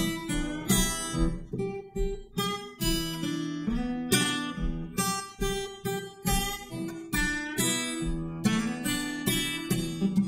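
Acoustic guitar strumming chords, one strum about every half second.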